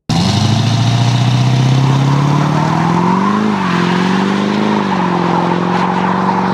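Chevrolet pickup truck's engine running hard as it launches with its rear tyres spinning and scrubbing. The engine note climbs and drops sharply about three and a half seconds in, then rises briefly again about a second later, with a hiss of tyre noise over it.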